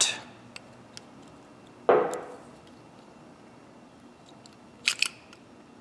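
Needle-nose pliers working a small plastic keeper out of a Stanley ratchet head, metal on metal: a few faint ticks, a sharper knock about two seconds in, then two quick clicks near the end.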